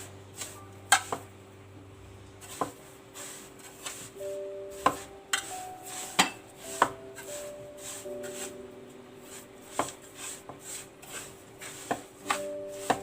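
A utensil knocking and clinking irregularly against a dish as syrup-soaked kunafa is turned and mixed. Soft background music with held notes plays underneath.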